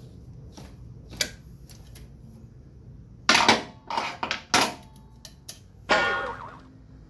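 Metal clanks of a T-handle socket wrench and steel drain pan on a metal bench while a scooter's oil drain plug is loosened and taken out. A light click comes about a second in, a run of loud sharp clanks a little past three seconds in, and a ringing metallic clank near six seconds.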